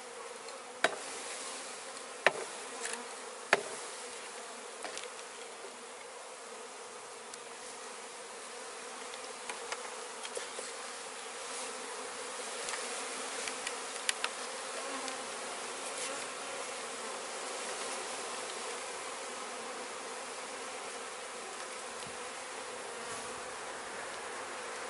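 Swarm of honeybees buzzing steadily as a package of bees is opened and tipped into a hive, the bees stirred up and flying out. Three sharp wooden knocks come in the first four seconds as the package box is handled, with a few lighter taps later.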